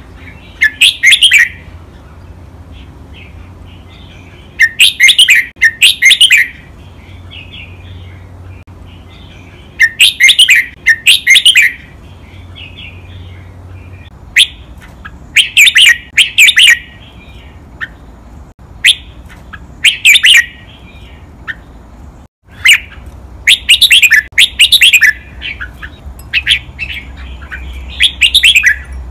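Red-whiskered bulbul singing loud, doubled song phrases, about one every four to five seconds, with soft twittering between them.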